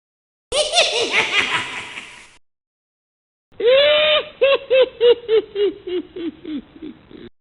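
High-pitched ghostly laughter, a horror sound effect: a short laugh that fades away, then after a pause a cackle of about a dozen 'ha' notes that sink in pitch and grow fainter.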